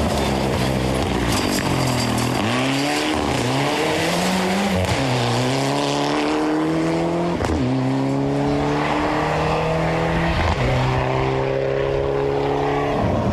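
Mitsubishi Lancer Evolution rally car's turbocharged four-cylinder engine at full throttle: the revs dip and pick up a few times in the first five seconds or so, then climb in long rises, each cut by a sudden drop at an upshift, about seven and ten seconds in.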